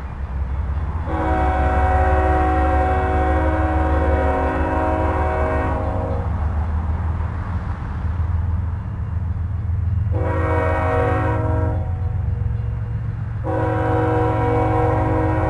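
BNSF GE ES44C4 diesel locomotive sounding its multi-chime air horn for a grade crossing: a long blast, a short one, then another long one. A low diesel engine rumble runs underneath throughout.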